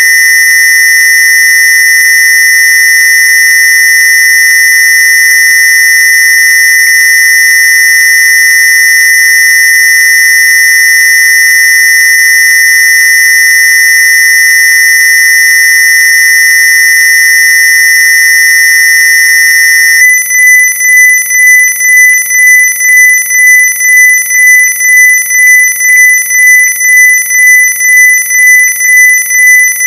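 Loud, steady synthesized square-wave tone near 2 kHz, a Rife/AWG frequency. About twenty seconds in it switches to a cleaner tone at nearly the same pitch that swells and fades about one and a half times a second.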